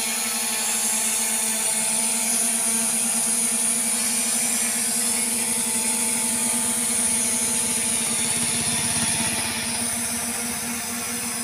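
SJRC F22S 4K Pro quadcopter drone hovering at close range, its propellers giving a steady, many-toned whine.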